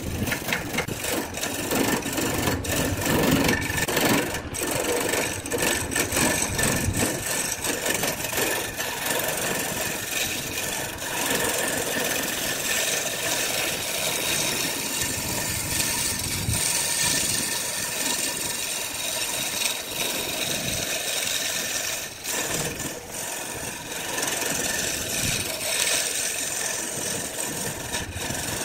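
Wood lathe spinning a glued-up wooden blank while a hand-held turning tool cuts into it. The result is a steady, rough scraping hiss of the cut over the running lathe, which dips briefly a few times.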